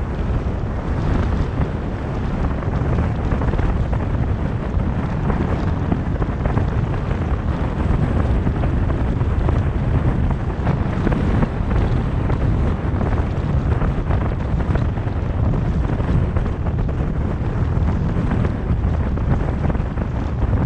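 Steady wind rumble on the microphone of a moving car's camera, over the low drone of tyres and road noise.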